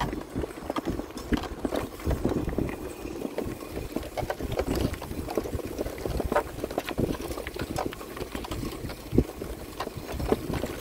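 Small motorcycle riding over a rough dirt road, with a low rumble and irregular knocks and rattles as it jolts over the bumps.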